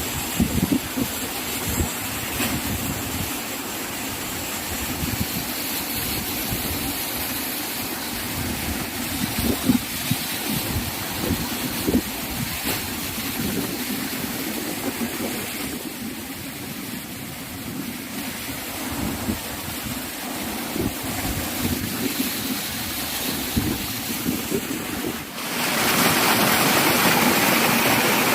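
Rushing water of a waterfall, a steady noise, with wind buffeting the microphone. Near the end the water noise abruptly becomes louder and brighter.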